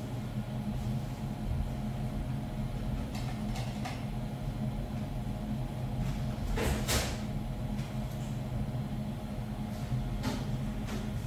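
Steady electrical hum of a COF bonding machine, with a few short clicks and scrapes as parts and tools are handled at it, the loudest about seven seconds in.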